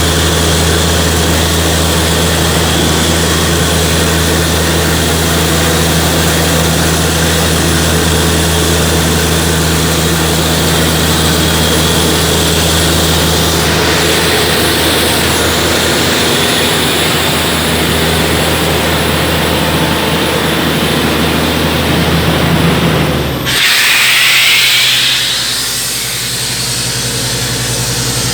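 Atlas Copco high-pressure borewell air compressor running steadily with a deep engine hum. About three-quarters of the way through the sound changes abruptly to a loud rush of air that fades over about two seconds, then settles into a lower, steady hum.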